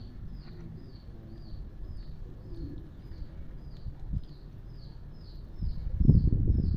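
A bird calling over and over, a short high chirp falling in pitch about three times a second, over a low rumbling noise that grows louder near the end.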